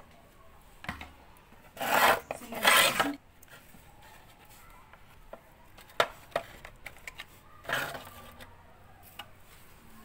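Hardened detergent residue being scraped and rubbed against a plastic washing-machine detergent drawer: two loud scrapes close together about two seconds in, a sharp click around six seconds, and a shorter scrape near eight seconds. The drawer is clogged with caked detergent.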